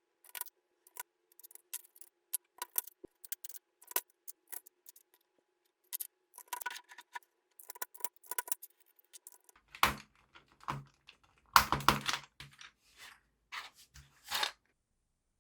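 Small sharp plastic clicks of vintage mechanical keyboard parts being handled and fitted together during reassembly, then louder clattering and knocks from about ten seconds in.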